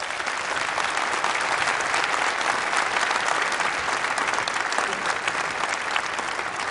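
A large audience in a big auditorium clapping steadily, many hands at once.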